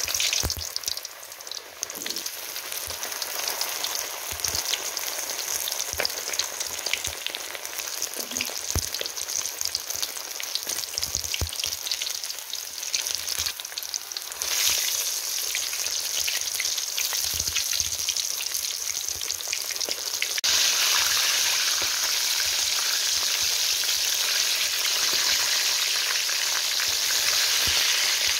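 Battered chicken legs deep-frying in hot oil in a wok: a dense, steady sizzling and crackling, with a few soft knocks as utensils move the pieces. The frying grows louder in two steps, about halfway through and again about two-thirds of the way in.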